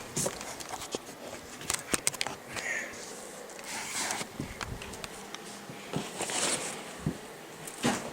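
Handling noises: rustling and scattered light clicks and knocks of things being picked up and moved aside, with a few short louder rustles.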